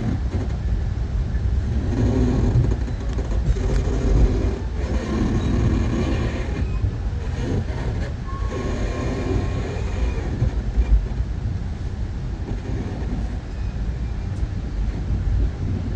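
Amtrak Pacific Surfliner passenger train heard from inside a coach car: a steady low rumble of the train's running noise.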